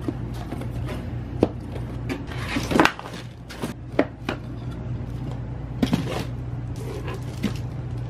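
Scattered light knocks and taps of flat-pack furniture panels being handled in their cardboard box, the loudest a little under three seconds in, over a steady low hum.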